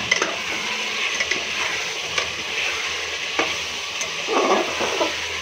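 Mutton and potato curry sizzling in its masala in an open pressure cooker while being stirred with a steel spoon, the stage where the meat is sautéed in the spices. The spoon scrapes and clinks against the pot several times over a steady sizzle.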